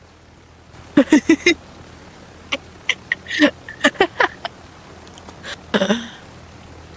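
A person's voice in short, quick bursts: four in a row about a second in, then a scattered run through the middle and one more near the end.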